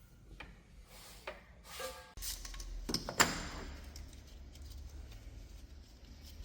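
A few clicks and knocks from parts or tools being handled, with a short squeak near two seconds in. A low hum sets in about two seconds in, and a sharp knock about three seconds in is the loudest sound.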